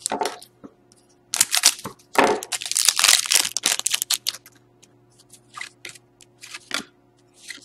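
Foil trading-card pack wrapper crinkling and tearing as it is ripped open and the cards slid out, the loudest crinkling from about one and a half to four seconds in, then lighter rustles and clicks as the cards are handled.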